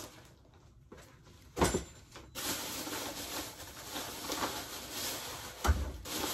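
Groceries being handled and set down on a kitchen counter: two dull thumps, one about a second and a half in and one near the end, with light rustling of plastic bags between them.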